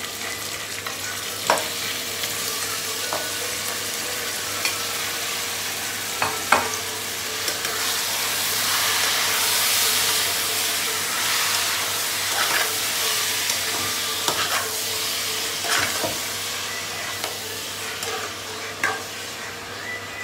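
Diced pork sizzling as it fries in a pot with sautéed onion and garlic, stirred with a metal spoon that knocks against the pot every few seconds. The sizzle swells around the middle.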